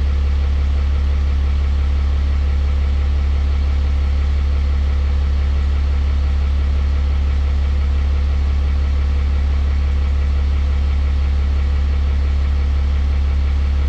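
Ram pickup's diesel engine idling steadily, a deep even drone with no changes in speed.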